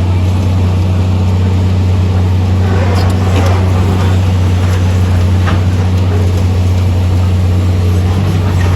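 Heavy machine's engine running steadily with a deep, loud hum, with a few short scraping clatters in the middle.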